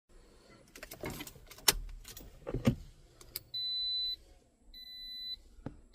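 A few clicks and rattles, then a car's electronic warning beep sounding in a steady repeating pattern, each beep about half a second long with gaps of similar length.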